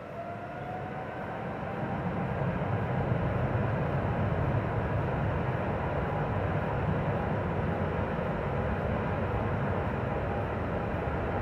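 Boeing 777-300ER's GE90 turbofan engines spooling up to takeoff thrust: a rising whine over the first two seconds, then a loud, steady roar with a deep rumble.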